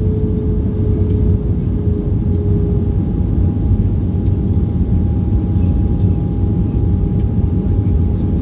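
Steady cabin roar of an Airbus A320-214 in flight, with the drone of its CFM56 jet engines. One steady engine tone fades out about three seconds in as a higher tone takes over, a sign of a change in engine power.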